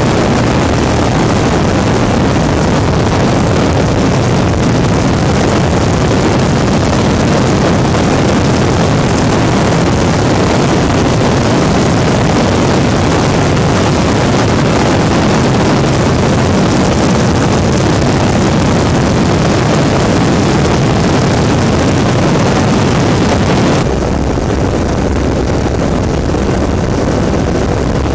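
Weedhopper ultralight's engine and propeller running steadily in flight, heard as a loud, dense, even noise from the open airframe. Near the end the sound turns abruptly a little quieter and duller.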